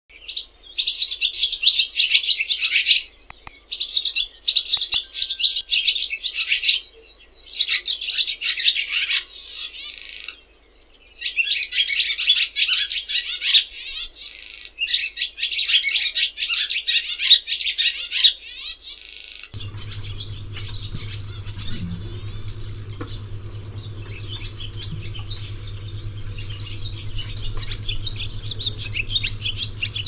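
Barn swallows singing: bouts of rapid twittering warbles and rattles broken by short pauses. About two-thirds of the way through, a steady low hum comes in under denser, quieter twittering.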